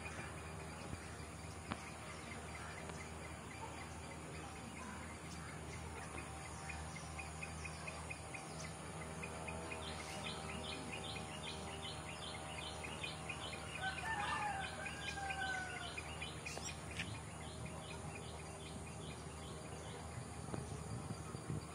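Birds calling over a steady low background hum. A fast run of evenly repeated chirps, about three a second, goes from around nine to seventeen seconds in, and a louder call that glides up and down comes around fourteen seconds in.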